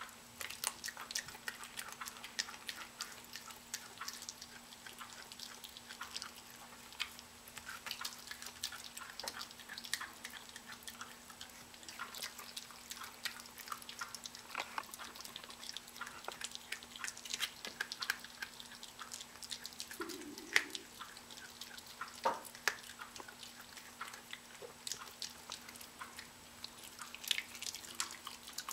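A miniature pinscher chewing and gnawing a piece of raw chicken: a busy, irregular run of small clicks and smacks.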